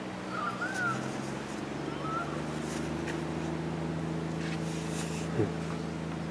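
A steady low hum, like a distant motor running, with a few short bird chirps in the first two seconds and some faint clicks. About five seconds in comes one brief sharp sound falling in pitch, the loudest moment.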